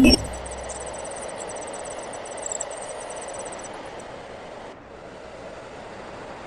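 A small motor running with a steady whir and a faint high-pitched whine. The whine stops about four seconds in, and the whir goes on a little quieter.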